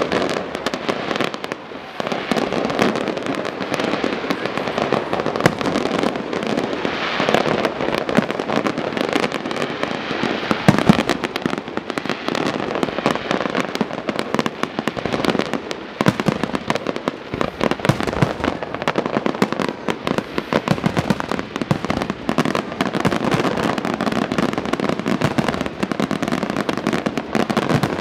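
Professional fireworks display firing continuously: aerial shells launching and bursting in rapid, overlapping bangs with no pause. A few reports stand out louder, the sharpest about eleven seconds in.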